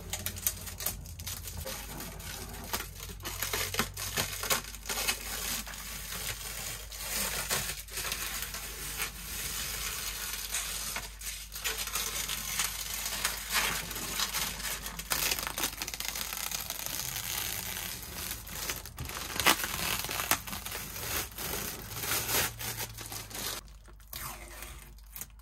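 Protective plastic film being peeled off a new 12 V fridge's door and front: a long run of crackling, tearing plastic with a few sharper rips, dropping quieter near the end.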